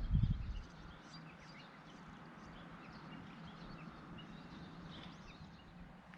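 Small birds chirping over quiet outdoor ambience, with a burst of low rumbling on the microphone in the first half-second.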